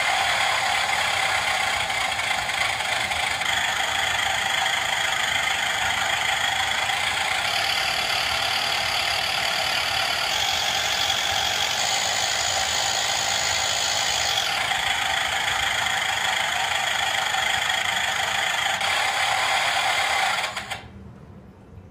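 Simulated piston-engine sound from an RC model plane's onboard sound module, played through a small speaker. The engine note runs steadily and shifts in tone a few times, then cuts off about a second before the end.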